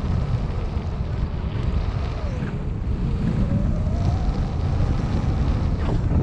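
Wind buffeting the microphone in flight under a paraglider, a heavy, fluttering low rumble. A faint tone slides down and back up about halfway through.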